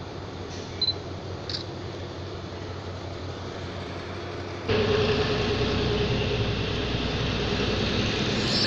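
Steady mechanical hum with two brief high clicks early on. About halfway through it abruptly becomes louder, with a steady mid-pitched tone over it.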